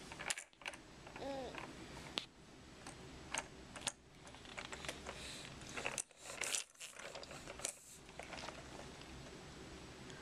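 A baby's brief vocal sound about a second in, then scattered clicks, taps and rustles, irregular and close.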